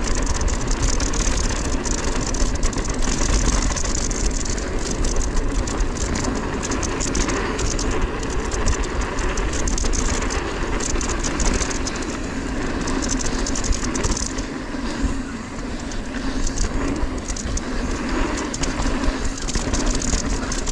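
Ibis Ripmo AF mountain bike riding fast over a rough dirt trail: steady tyre noise on dirt and gravel, with many small knocks and rattles from the bike over the rough ground, and wind rumble on the camera microphone.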